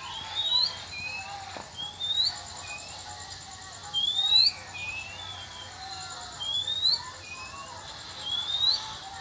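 Oriental magpie-robin (kacer) singing: a clear rising whistle repeated about every one and a half to two seconds, five times, each followed by a shorter, lower note. Fainter, lower whistled notes sound in between.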